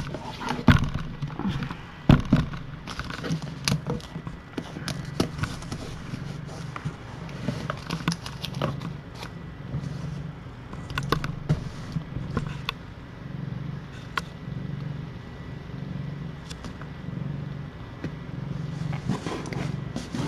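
Mother cat purring steadily in a slow even rhythm, with scattered small clicks and rustles as her nursing kittens move against her and the fleece bed.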